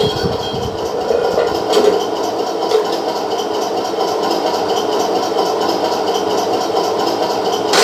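1/16-scale full-metal RC Tiger I tank running on its stand, giving a steady engine-idle sound, with a short louder burst near the end.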